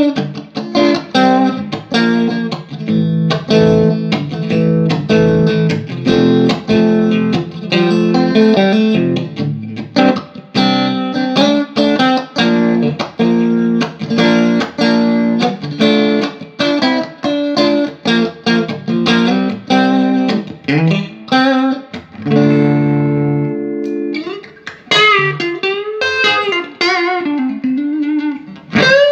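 Electric guitar played through a 1966 Fender Vibrolux Reverb tube amp, sound-tested after repair and maintenance. Short chords are struck in a steady rhythm, then one chord is held about 22 seconds in, followed by notes bent up and down near the end.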